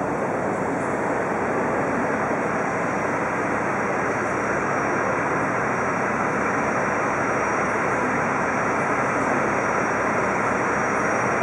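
Jet airliner's engines running at taxi power as it rolls in toward its stand: a steady rushing drone that grows slightly louder, with a faint thin high whine over it.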